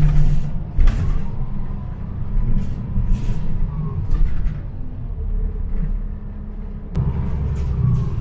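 NJ Transit bus engine running with a steady low rumble, broken by a few short hisses and a sharp click about seven seconds in.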